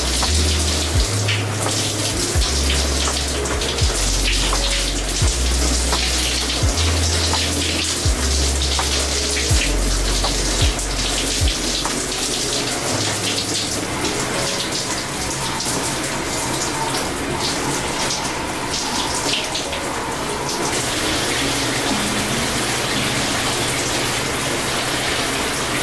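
Shower water running and spraying steadily on tile, over background music with a deep bass line.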